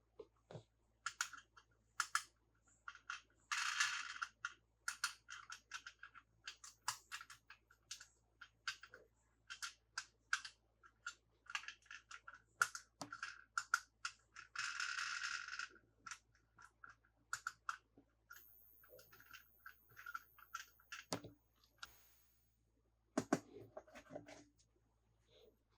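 Toy pieces and packaging being handled: many small clicks and taps, with two short bursts of rustling about 3 and 15 seconds in.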